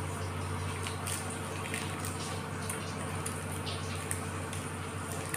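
Chewing with soft wet mouth sounds, and the crinkling and tearing of chocolate-bar wrappers, heard as scattered faint crackles. Under it all runs a steady low hum.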